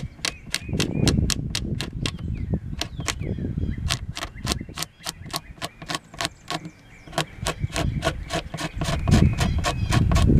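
A small hand scraper working in short, quick strokes on a guitar's spruce top, scraping cured CA glue and finish residue off around a repaired crack. It gives a rapid run of sharp scratchy clicks, about four or five a second.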